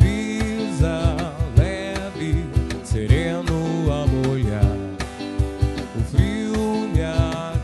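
A live acoustic band with a male singer, acoustic guitar, electric guitar and a cajón. The singing glides over sustained guitar chords, and the cajón keeps a steady beat of low hits.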